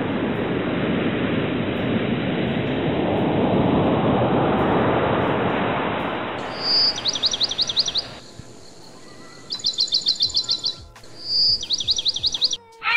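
A steady rushing noise swells and then fades away over the first eight seconds. A bird of prey then calls three times, each call a clear high whistle followed by a fast run of chirps.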